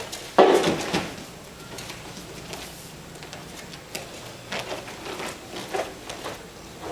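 A person thrown in aikido hitting a foam mat in a breakfall: one loud thump about half a second in, trailing off briefly as the roll finishes. Softer thumps and rustles of bare feet and heavy cotton uniforms on the mat follow later.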